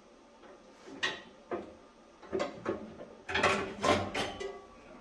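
Knocks and clunks of a riding mower's hood being worked loose and lifted off: a few separate knocks, then a busier clatter of knocks and rattles in the second half, which is the loudest part.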